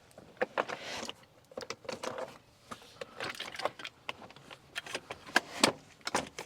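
Irregular clicks, knocks and rattles of a plastic infant car seat base being handled and fitted onto the back seat, its stability leg and rigid latch connectors clacking as they are set.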